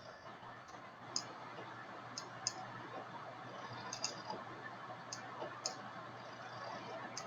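Scattered clicks of a computer mouse, about eight at irregular intervals, some in quick pairs, over a faint steady hiss.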